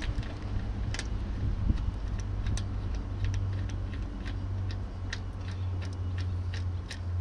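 Irregular sharp metallic clicks, about one or two a second, as a wheel-lock bolt in an alloy wheel is turned by hand and spins without unscrewing. A steady low hum runs underneath.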